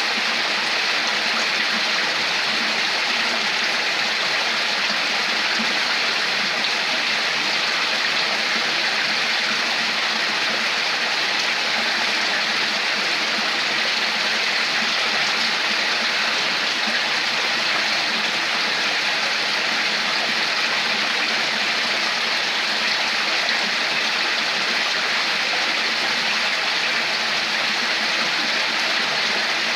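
Running water babbling steadily, like a small stream, as an even, unbroken rush without pauses.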